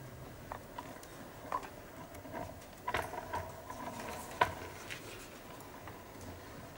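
Sparse, quiet percussive sounds from the string players: scattered short taps and brief plucked notes, with a sharp click about four and a half seconds in standing out as the loudest.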